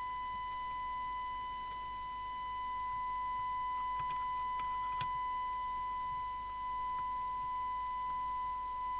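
Steady test tone from the speaker of an SMC Oscar 1 FM CB radio receiving a signal generator's tone-modulated carrier, with overtones above it; it sounds awful, which the repairer puts down to the IF stages being far out of alignment. A couple of faint clicks come about four and five seconds in.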